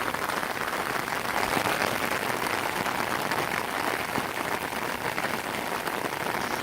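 Steady storm rain, a dense patter of drops at an even level.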